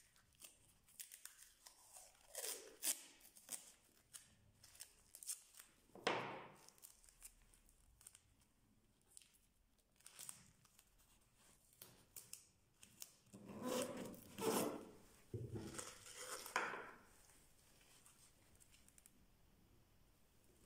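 Scattered clicks, scrapes and rustles of hand work, with a louder scraping rustle about six seconds in and a cluster of them a little past halfway.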